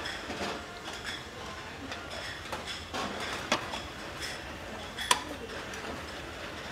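Light clicks and clinks of eating utensils against dishes, with two sharper clicks, one about three and a half seconds in and a louder one about five seconds in.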